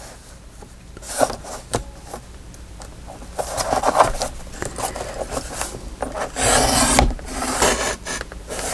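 Paper and card being handled and slid across a craft desk: scattered light clicks, then stretches of rustling and scraping, loudest near the end.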